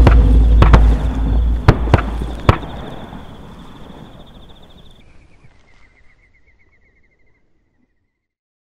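About five sharp cracks in the first two and a half seconds over a loud deep rumble that dies away over the next few seconds. A thin high warbling tone runs through it, drops lower about five seconds in and fades out near the end.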